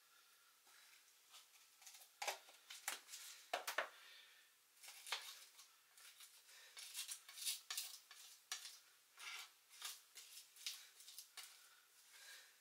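Chef's knife blade pressing and scraping chopped garlic and salt into a paste against a chopping board: a run of faint, irregular scrapes and light taps.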